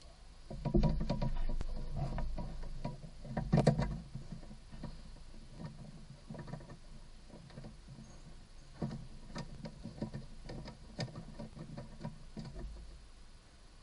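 Hand working behind a plastic under cover: irregular scratchy rustling and small clicks of plastic being handled. The sounds are loudest and busiest in the first four seconds, then thin out to scattered clicks.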